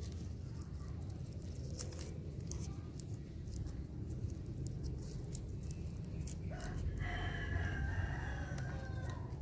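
A rooster crows once, a wavering call of a couple of seconds starting about two-thirds of the way in. Before it come faint crinkles and ticks of thin PE plastic grafting tape being wound by hand around an avocado graft, over a steady low background rumble.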